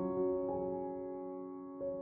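Soft background music played on a piano-like keyboard: held notes slowly fade, then new notes come in near the end.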